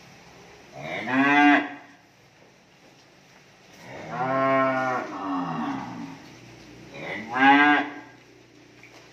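Cattle mooing three times. Each call lasts about a second, and the middle one is the longest.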